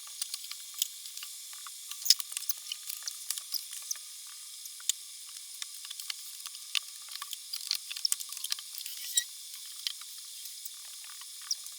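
Food sizzling in a hot pan, a steady hiss with frequent sharp crackles and pops of spitting oil.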